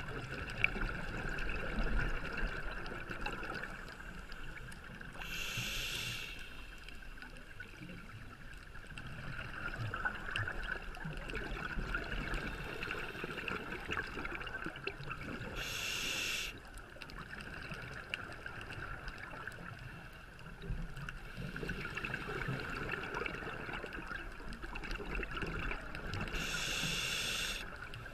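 Scuba diver breathing through a regulator underwater. The exhaled bubbles rush out three times, about ten seconds apart, over a steady background hiss of water.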